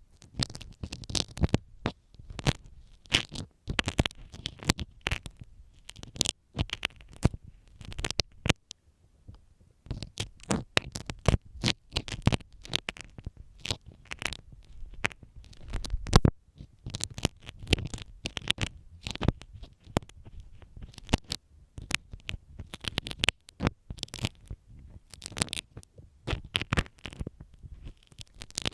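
A dressmaker's pin scratching and tapping inside the ear of a binaural microphone, heard very close: dense, irregular crackly strokes and clicks, with a short pause about nine seconds in.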